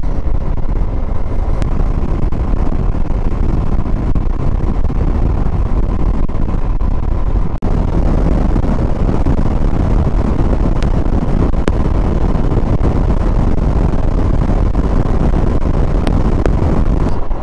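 Motorcycle ridden at a steady road speed: a loud, steady rush of wind on the microphone mixed with engine and road noise, dipping for a moment about seven and a half seconds in.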